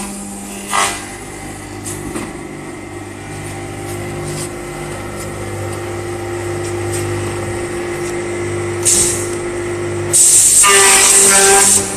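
Pallet cutting saw machine running with a steady motor hum, with two brief high hisses, then a loud saw cut through the wooden pallet for about two seconds near the end.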